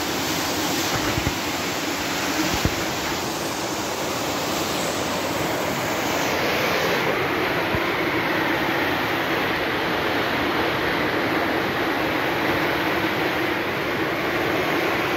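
Muddy flash-flood water rushing in a steady, loud torrent beneath a bridge. Two light knocks near the start.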